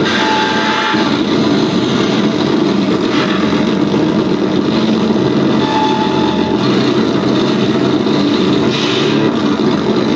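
Loud, steady electronic noise drone played live from a laptop and electronics: a dense rumbling wash with faint thin tones surfacing briefly near the start and again about halfway through.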